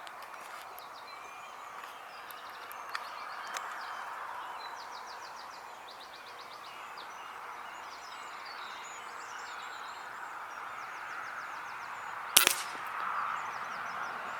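Birds singing a dawn chorus with repeated rapid trills over a steady hiss, then a single sharp air rifle shot about twelve seconds in.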